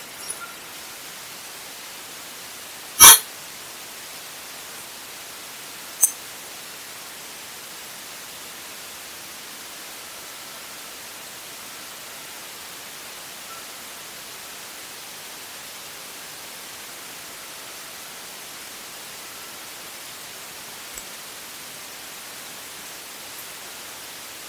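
Steady hiss from a bat detector turned on a trail camera that is very quiet, so the detector's own noise is nearly all there is. There is one sharp, loud click about three seconds in and a smaller click about three seconds later.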